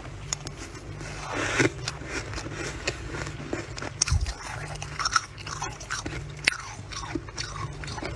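Close-up biting and chewing of freezer frost: irregular crisp crunches with squeaks as the packed frost is compressed between the teeth.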